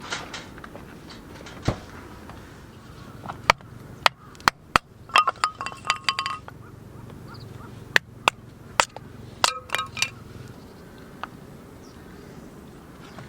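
Scattered sharp clinks and knocks of hard gear being handled, coming in two clusters, with a few strikes ringing briefly like metal.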